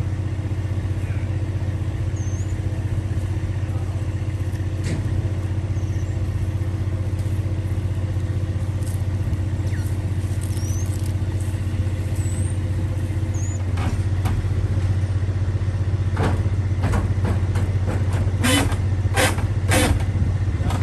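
Semi truck's diesel engine idling steadily with a low hum, with a run of sharp metallic knocks near the end.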